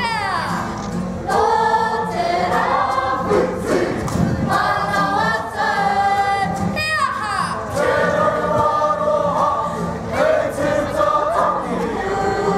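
Kapa haka group singing a Māori song together in chorus, holding long notes in phrases, with the pitch sliding steeply down at the end of a phrase near the start and again about halfway through.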